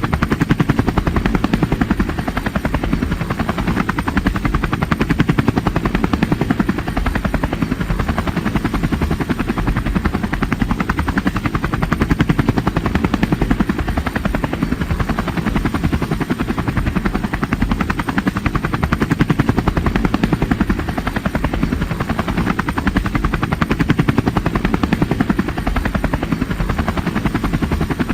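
Helicopter sound effect: steady, rapid rotor-blade chop over engine noise, unchanging throughout.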